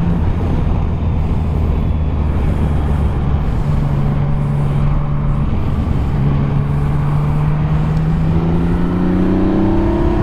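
Yamaha Tracer 900 GT's 847 cc inline three-cylinder engine running through a Roads Italia Thunder Carbon slip-on exhaust while riding. The engine note holds steady with a few changes in pitch, then rises steadily near the end as the bike accelerates.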